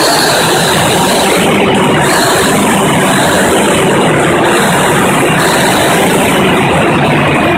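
Caterpillar 3412C V12 diesel generator engine running, loud and steady.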